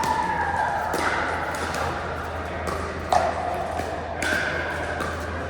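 Pickleball paddles striking the ball during a rally: three sharp hits about one, three and four seconds in, with short held high tones between them.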